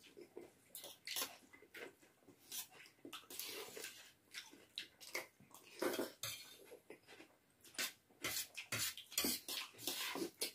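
Two people eating instant noodles from steel plates: irregular scraping and tapping of plastic forks on the metal plates, mixed with noodle slurping and chewing.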